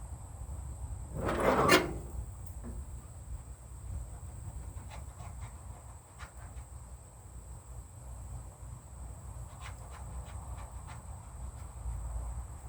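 Steady high trill of crickets, with a brief rising scrape about a second in and a few light clicks afterwards.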